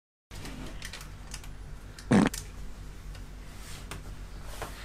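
Quiet small-room tone with faint clicks and rustles from people shifting at a table, and one short, louder sound about two seconds in.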